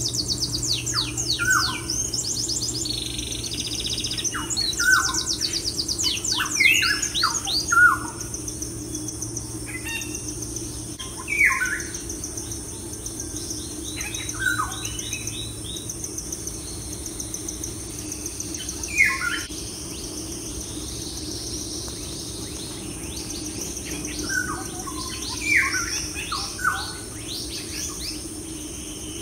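Birds chirping: clusters of short, quick downward-sweeping calls, busiest in the first several seconds, over a steady low hum.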